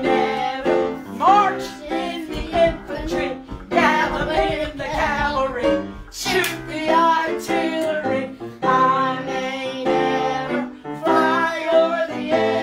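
A woman and young children singing a children's action song together, with piano accompaniment.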